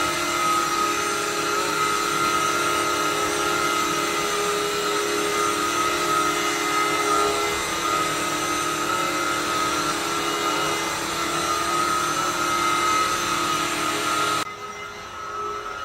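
Vacuum cleaner running with a steady high whine over a rushing hiss. About fourteen and a half seconds in, it suddenly drops to a much lower level.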